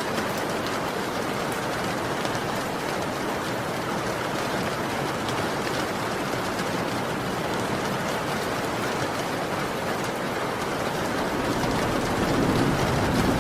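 Heavy rain falling steadily, a dense even hiss of drops. A low rumble of thunder swells in near the end.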